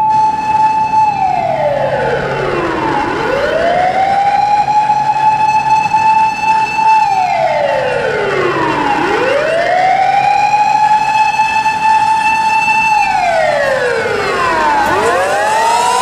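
Electronic ambulance siren sounding steadily and loudly in a slow repeating cycle: it holds a high note for a few seconds, slides down over about two seconds, then swoops quickly back up. The cycle comes three times.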